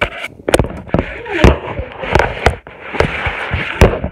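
Plastic bag and styrofoam food container handled right at the microphone: loud crinkling and crackling broken by many sharp cracks and knocks.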